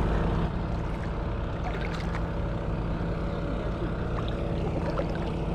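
An engine runs steadily with a low, even hum, with a few faint clicks over it.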